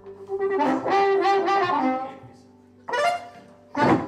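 Blues harmonica playing a chord-rich, wavering phrase for about two seconds, then two short blasts near the end, the last with a low thump under it.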